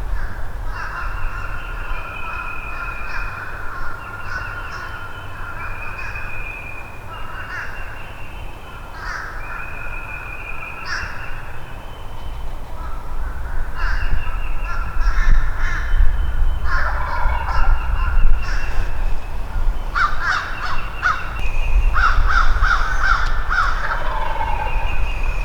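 Wild turkeys gobbling among other birds calling: many short, overlapping calls, with a denser run of rapid rattling calls near the end. A low rumble sits underneath and grows louder from about halfway through.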